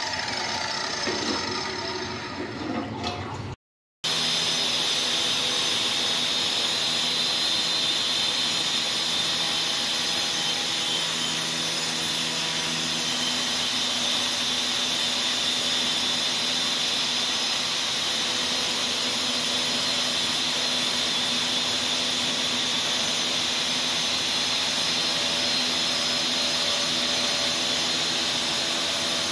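Electric motor of a LongDe D7-1200 tile cutter running at a steady speed, its diamond blade spinning, with a constant hiss. Before that comes a few seconds of scraping and rubbing, which breaks off suddenly about three and a half seconds in.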